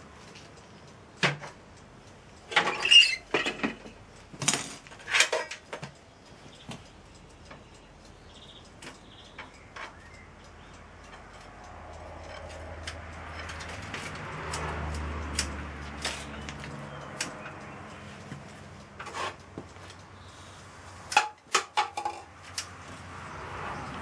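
Metal clanks and clatter from a crucible of molten brass being lifted out of a small electric furnace with steel tongs and the furnace door being shut, followed later by a steel rod clinking against the crucible. The sharp clanks come in a cluster in the first few seconds and again near the end, with a low hum rising in the middle.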